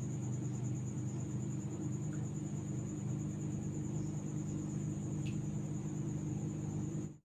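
Steady low electrical or motor hum with a constant high-pitched whine above it, both cutting off abruptly near the end.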